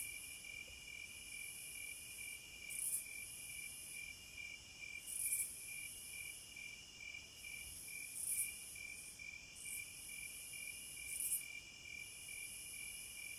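Cicadas droning in a continuous chorus, with a steady fast-pulsing trill and a louder high-pitched swell about every three seconds.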